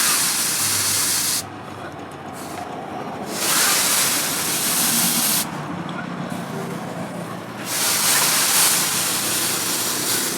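Three bursts of loud hissing noise, each about two seconds long, with quieter gaps between them.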